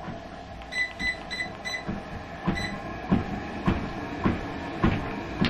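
Walking pad treadmill running, with footsteps thudding on its belt about every 0.6 s. In the first half, a run of short electronic beeps comes from the pad as it is set going.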